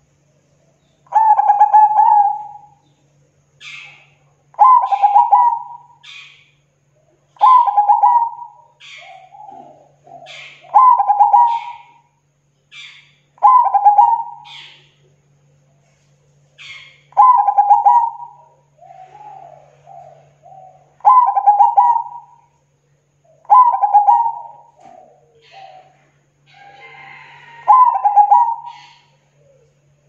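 Zebra dove (perkutut) cooing: a loud coo phrase about a second long, repeated nine times at roughly three-second intervals.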